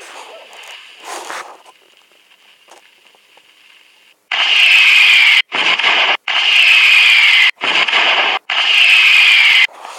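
Firecrackers hissing in five loud bursts from about four seconds in, each starting and stopping abruptly. Three of the bursts carry a whistle that falls in pitch; before them there is only faint rustling.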